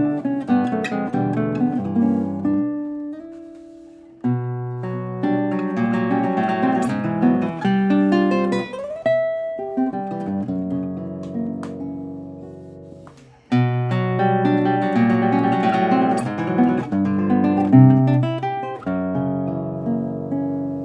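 LaMancha Rubinito nylon-string classical guitar played in phrases of plucked notes and chords. Twice a phrase is left to ring out and fade before the next one starts.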